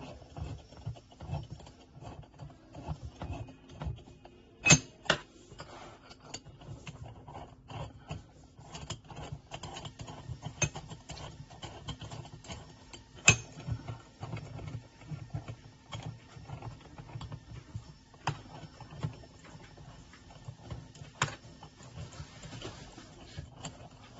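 Light metallic clicks and rattles of a stainless steel vise and a 6 mm Allen key being handled while the vise is fixed in place, with a few sharp metal-on-metal knocks, two of them loudest. A faint steady hum sits underneath.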